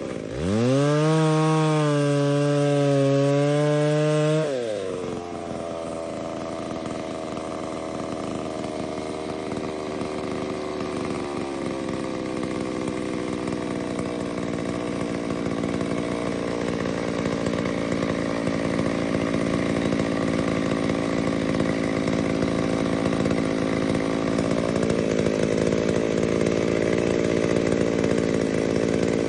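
A 60cc two-stroke chainsaw revved up sharply and held at high throttle for about four seconds, then dropping back to a lower, steadier running speed that slowly grows louder.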